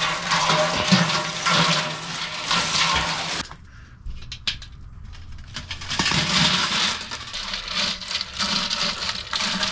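Ice cubes poured from a bag into a stainless stock pot of water, clattering and splashing over a steady low hum. After a sudden cut about three and a half seconds in there are a few light knocks, then from about six seconds water sloshes as a perforated basket of boiled Dungeness crabs is lowered into the ice bath.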